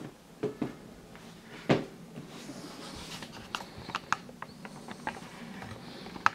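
A pair of sneakers being handled and set down on a cardboard shoebox: a few soft thumps in the first two seconds, the loudest a little under two seconds in, then scattered light clicks and ticks.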